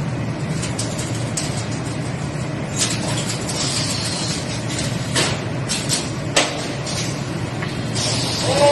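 2D CNC wire bending-welding machine running with a steady hum, punctuated by sharp mechanical clicks and knocks as it bends and clamps the wire, and a brief hiss about four seconds in.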